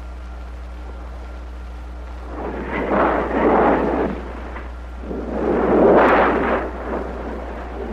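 Two rolls of thunder, each swelling up and dying away over a second or two, over a steady low hum.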